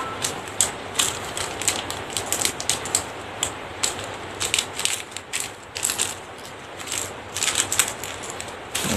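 Clear plastic packets holding minnow lures crinkling and crackling as they are handled and laid out one by one, an irregular run of small crackles.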